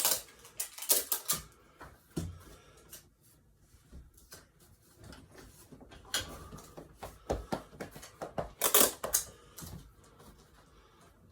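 Toy cars and their packaging being handled on a tabletop: irregular clicks, taps and rattles, in a busy cluster at the start and a louder one near nine seconds.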